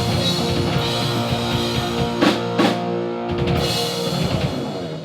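Rock band playing electric guitar, bass and drum kit on sustained chords, with two heavy drum and cymbal hits about two seconds in; the music dies down near the end.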